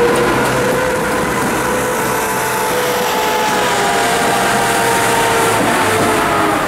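SA136 diesel railbus (szynobus) running under power as it pulls away along the platform, a steady engine hum with a whine above it, the pitch drifting a little lower in the second half.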